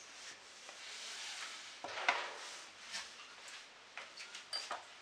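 Mixer-grinder jar being closed with its lid and lifted off a stone counter: a soft rustle of handling, then a few light clicks and knocks.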